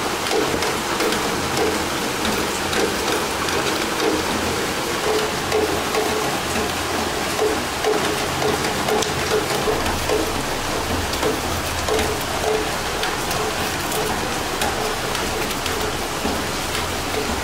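Steady rain falling, with many scattered drop impacts.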